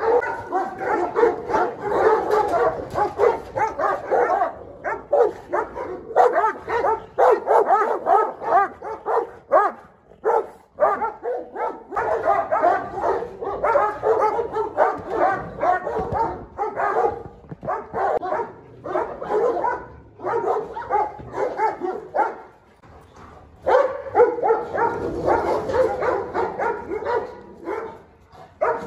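Large mastiff-type dogs barking and yelping rapidly and continuously, the barks overlapping. There are brief lulls about ten seconds in and again a few seconds before the end.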